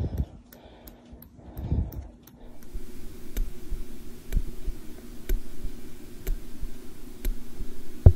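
Mechanical bileaflet mitral heart valve ticking with each heartbeat, with a dull thump under each click. The clicks come fast at first, about three a second at a racing heart rate, then, after a break, slow to about one a second at a resting rate.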